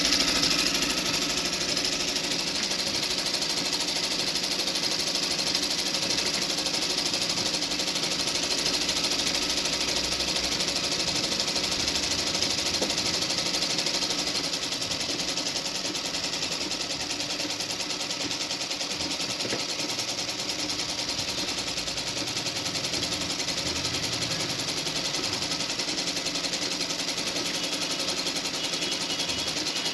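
JAXI JX-38 sewing machine running steadily, a little quieter from about halfway through.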